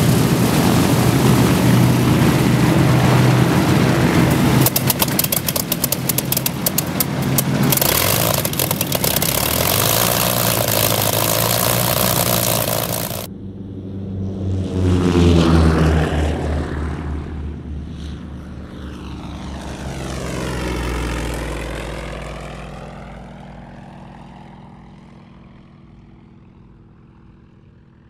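Vintage propeller warbird piston engines. First a Supermarine Spitfire's engine runs loud and close, until a sudden cut about 13 seconds in. Then a twin-engine Lockheed Hudson passes by with a sweeping, rising and falling tone, and the sound fades away toward the end.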